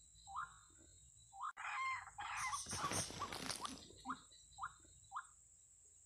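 White-breasted waterhen calls: short harsh notes repeated about every half second, with a louder stretch of overlapping calls from about two seconds in to nearly four.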